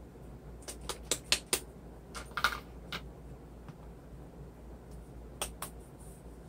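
Small hard clicks and taps of plastic acrylic craft-paint bottles being handled and set down on the table: a quick run of about four clicks about a second in, a short cluster a little later, and two more near the end.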